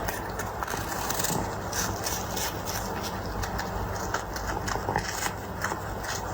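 A cat chewing and crunching food, with many quick, irregular crunches and clicks over a steady low rumble.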